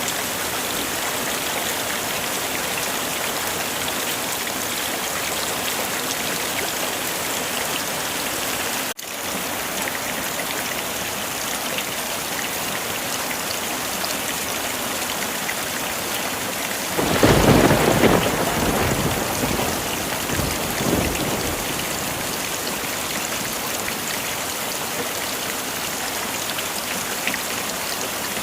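Heavy rain falling steadily. A little past halfway a clap of thunder breaks in and rumbles for a couple of seconds, with a smaller roll a few seconds later; about nine seconds in the rain cuts out for an instant.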